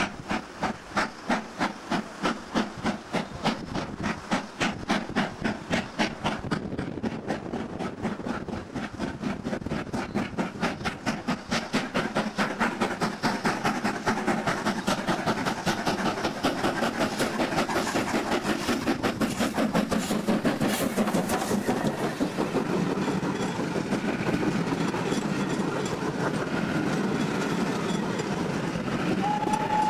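BR Standard Class 4 2-6-4 tank locomotive 80079 pulling away under steam, its exhaust beats starting at about two a second and quickening as the train gathers speed. Over the second half, the beats give way to the steady running noise of the coaches rolling close by.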